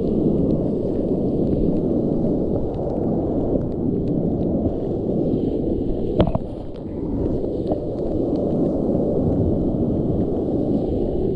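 Wind buffeting the microphone, a steady low rumble throughout. About six seconds in there is a single sharp click as the metal sand scoop is pushed into the wet sand.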